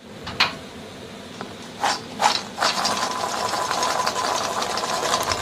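Crisp deep-fried chickpeas rattling and clattering as they are moved about. A few sharp knocks come in the first half, then a steady dense rattle of many small clicks, the sound of their crunchy fried coating.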